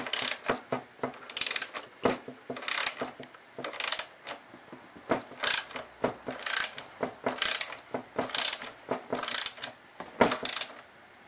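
Hand ratchet clicking in repeated short strokes, a quick burst of clicks about every half second to second, as it turns the screws holding a Stihl backpack blower's frame.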